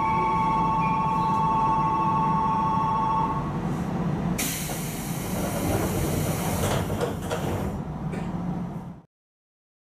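Hokuso Railway 7300 series train door cycle: a steady two-tone door warning buzzer sounds for about three seconds. Then a loud hiss of air starts, and the sliding doors work with several knocks as the panels stop, before the sound cuts off suddenly.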